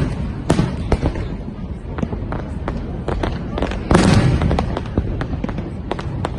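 Fireworks going off: a steady run of sharp bangs and crackles, with the loudest, fuller burst about four seconds in.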